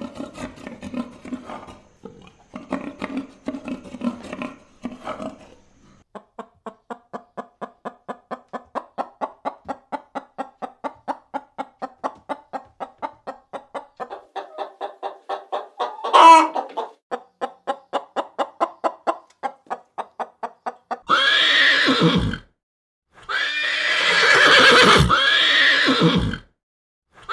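A series of animal calls. First a stretch of rapid, evenly repeated short calls at about four a second, broken by one sharp sweeping cry. Then, in the last six seconds, a horse whinnies loudly three times.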